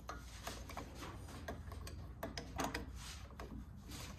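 Socket ratchet clicking in short irregular runs while a nut is loosened to free an outboard carburetor.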